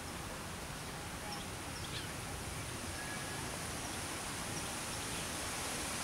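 Steady outdoor background hiss with a few faint bird chirps about a second and a half in.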